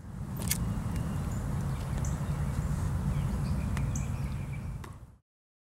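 Outdoor field ambience: a steady low rumble of wind on the microphone, a bird chirping twice, and a few sharp clicks, the first about half a second in as a cigarette lighter is struck. The sound cuts off suddenly near the end.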